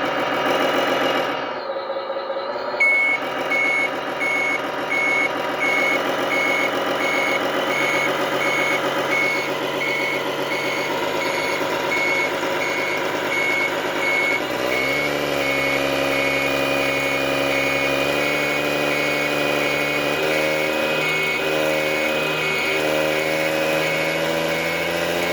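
RC wheel loader's electronic sound module playing a heavy diesel engine with a reversing alarm beeping about once a second while the model drives in reverse. About halfway through the engine note grows deeper and fuller as the throttle is opened.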